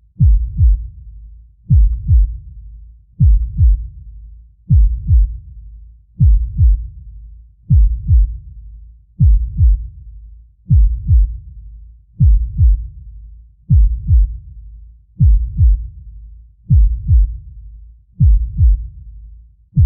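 Deep heartbeat sound effect: slow, regular 'lub-dub' double thumps, about forty beats a minute.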